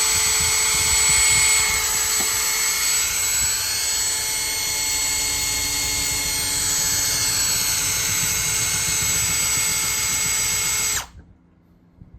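A 20-volt Master Mechanic cordless drill boring into a front door under pressure, its motor whining steadily, then stopping suddenly about eleven seconds in.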